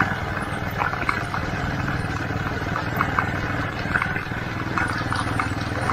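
Steady low rumble of a small vehicle moving along a path, with scattered light clicks and rattles.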